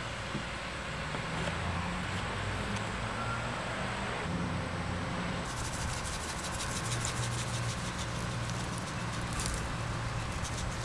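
Seasoning shaker shaken over raw meat: a fast run of light rattling ticks that starts about halfway through, over a steady low background hum.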